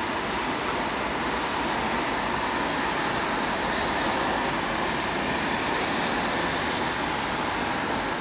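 Steady road traffic noise as the race convoy's cars, a police car and a motorcycle pass along the road.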